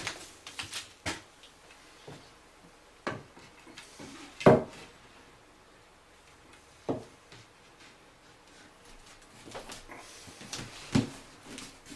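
Scattered light knocks and taps of a wooden backsplash trim strip being handled and set against the wall and countertop, the loudest knock about four and a half seconds in and a sharp one near seven seconds.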